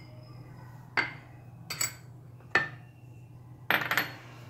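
Steel spoons and dishes clinking against a glass bowl: a few sharp clinks about a second apart, then a brief clattering rattle near the end.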